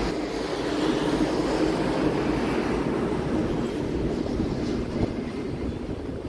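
Steady outdoor background noise: a continuous rumble with hiss, fading slightly near the end.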